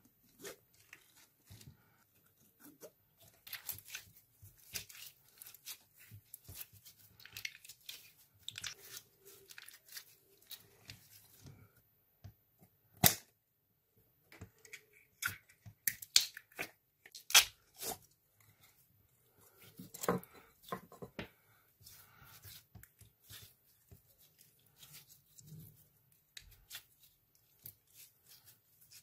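Thin plastic slime bottles crackling and crinkling as they are squeezed by hand, with soft slime squishes and scattered sharp clicks, the loudest in the middle.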